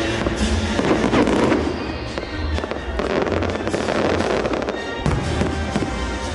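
Aerial fireworks shells bursting and crackling in rapid succession, with a heavy bang about five seconds in, over music playing throughout.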